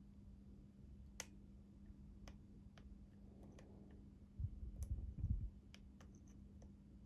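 Faint, sparse clicks of a lock pick and tension wrench working the pins inside a Master Lock 6835 padlock, about one a second. A burst of low thumps about four and a half seconds in, the loudest sound here.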